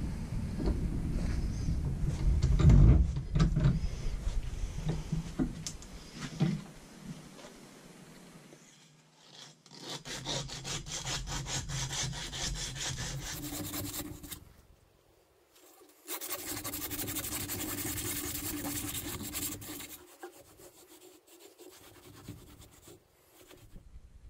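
A strip of old abrasive belt rubbed back and forth inside the eye of a double-bit axe head, scouring out debris before a new handle is fitted. The first few seconds hold heavier, lower scraping and knocks. Then come two bouts of quick rasping strokes, each a few seconds long, with a short pause between them.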